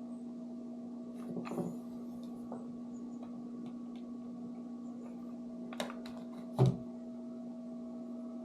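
Washroom pipe ventilation fan running with a steady electric hum, with a few light clicks and one louder knock a little after the middle.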